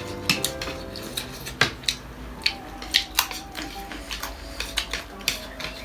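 Cutlery clicking and scraping against plates and bowls during a meal: about a dozen sharp, irregular clicks.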